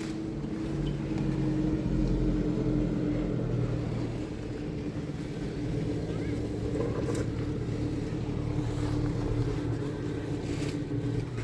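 A motor running with a steady hum, cutting off at the end.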